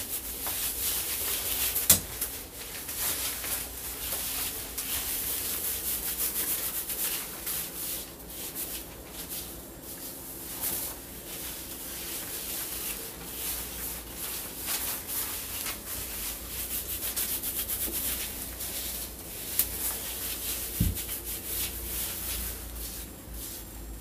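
Close rubbing and rustling of short, damp curly hair as hands work leave-in conditioner through it, with two light knocks, one about two seconds in and one a few seconds before the end.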